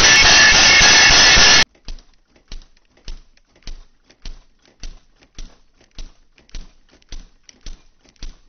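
Kitchen sounds: a loud, steady rushing noise that cuts off suddenly a little under two seconds in, then a regular knock, a little under two a second.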